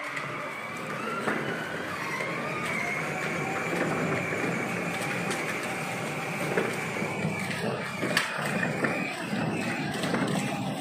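Children's battery-powered ride-on toy car driving: a steady electric motor and gearbox whine over the rumble of its hard plastic wheels rolling on rough paving, with a few sharp clicks.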